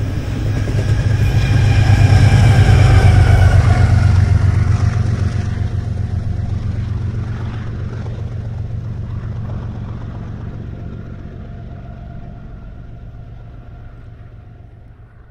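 Diesel locomotives at the rear of a BNSF container freight train pass close by. Their engine drone is loudest about two to four seconds in, and the pitch falls as they go by. The sound then fades steadily as they move away.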